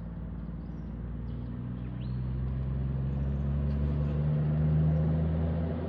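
Heavy truck engine running as the truck comes closer, getting louder with a slowly rising pitch up to a peak about five seconds in, then easing off.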